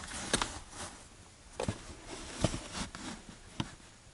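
Handling noise from a portable lithium jump starter and its clamp cables: about six light clicks and knocks spread over a few seconds, with faint rustling between.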